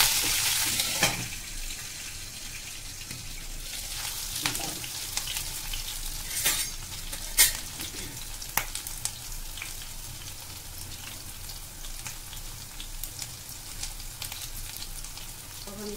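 Chopped green chillies frying in hot oil with cumin and mustard seeds in a steel kadhai. A loud sizzle as they hit the oil dies down within the first second or two to a steady, quieter sizzle, broken by a few sharp pops.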